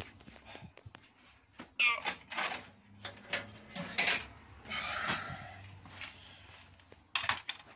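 Rummaging through clear plastic storage boxes on a shelf: an irregular run of knocks, clatters and rattles of plastic and metal parts being handled, loudest about two and four seconds in.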